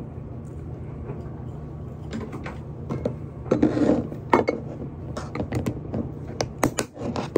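Snap-lock plastic lid of a glass food container being handled and pressed shut, a run of sharp clicks and clatters starting about two seconds in as the latches snap down. A steady low hum runs underneath.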